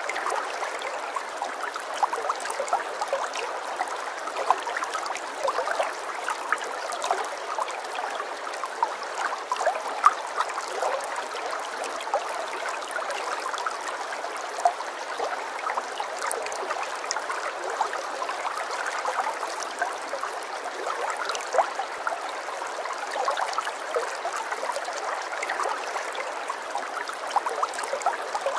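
Running water of a small stream trickling steadily, with many small splashes through it.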